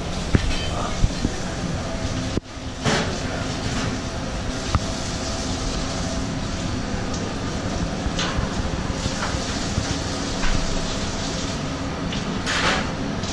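Steady hum and rush of commercial-kitchen machinery, with a few light clinks of metal and dishware.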